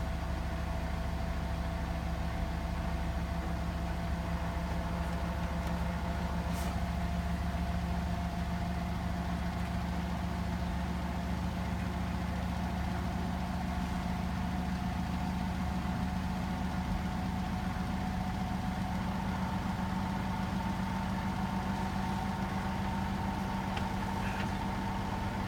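Hotpoint WMFUG 942 washing machine running late in a Cotton 60 °C programme: a steady motor hum with a whine that edges slightly higher in pitch about halfway through.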